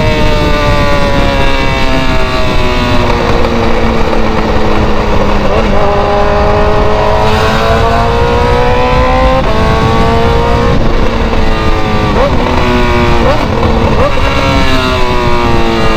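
Loud BMW engine and straight-through exhaust pulling through the gears, its pitch sliding steadily and then jumping at each gear change, three or four times. A few sharp exhaust pops crackle near the end.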